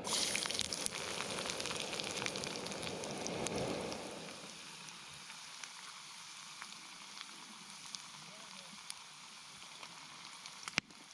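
Meat sizzling on a hot iron griddle. It starts abruptly and is fullest for the first few seconds, then settles to a softer, thinner hiss with small pops.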